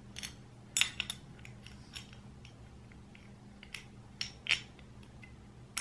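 Scattered light clicks and clacks as the hard parts of a rifle's folding stock adapter are handled and fitted together, the sharpest a little under a second in, over a faint steady hum.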